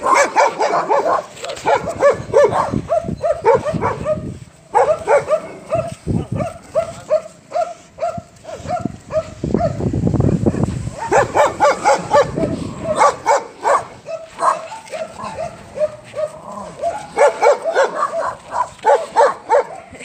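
Dog barking rapidly and repeatedly in runs of several barks a second, with short pauses between runs.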